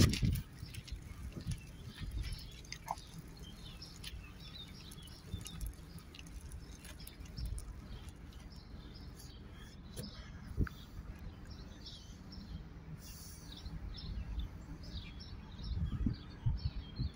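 Small birds chirping on and off over a low background rumble, with a few heavier low bumps near the end.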